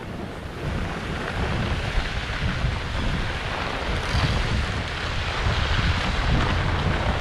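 Wind buffeting the microphone in gusty low rumbles over a steady hiss of skis sliding on packed, groomed snow, growing louder about half a second in.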